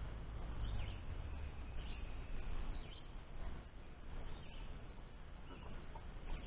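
Faint, short bird chirps spaced about a second apart over a steady low rumble.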